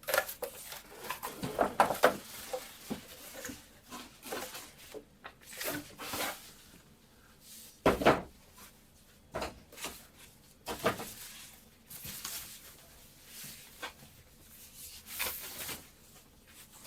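Cardboard and plastic packaging being handled while a ceiling lamp is unpacked: scattered rustling, scraping and light knocks, with one louder thump about eight seconds in.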